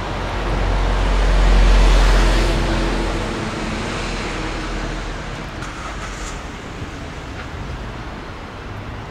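Road traffic noise on a city street: a steady rush with a deep rumble that swells to its loudest about two seconds in, then settles lower.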